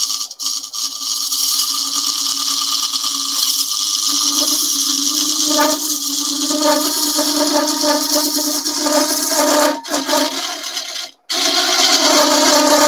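Bowl gouge cutting the inside of a wooden bowl spinning on a small JET lathe: a continuous hiss and scrape of shavings coming off, with a steady low hum underneath. The cutting breaks off briefly twice late on.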